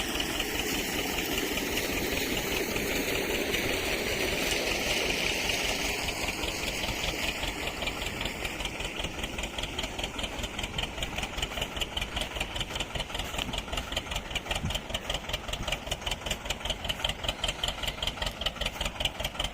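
An engine idling steadily, with a regular pulse in its sound that becomes more distinct about halfway through.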